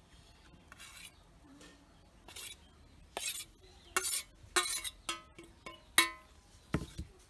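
A steel spoon scraping and tapping against a stainless steel bowl as grated coconut is scraped out into a bowl of rice flour. It makes a string of short metallic clinks and scrapes with a brief ring, the sharpest clink about six seconds in.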